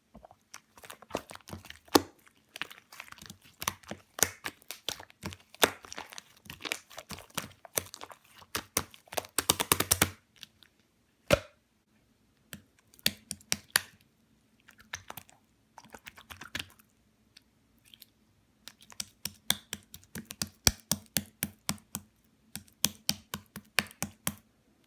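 Slime being pressed, poked and stretched by hand, making quick runs of small crackling clicks and pops, with two short pauses.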